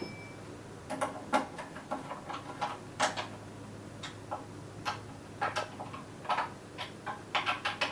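Irregular small metal clicks and taps of an Allen key turning M6 bolts to fix a wooden desk shelf to its leg, with a faint steady low hum underneath.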